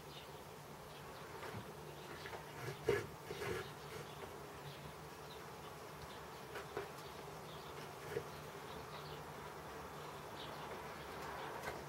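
Knife cutting and scraping into wood during chip carving: scattered short scratchy crackles, the loudest cluster about three seconds in, over a steady low buzzing hum.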